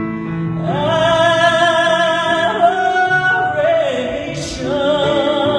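Male vocalist singing a worship song over instrumental accompaniment, holding a long note with vibrato that slides down into a second held note about two-thirds of the way through.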